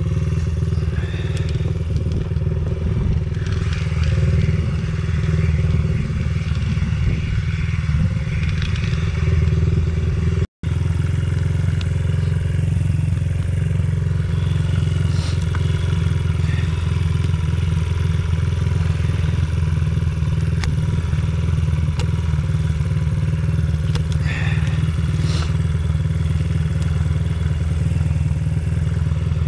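A small motorcycle engine running steadily at low revs, with scattered crackling and scraping of roots and soil being pulled out of the dirt.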